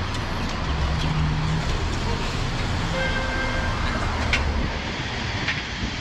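Road traffic going past, a steady low rumble of cars on the street.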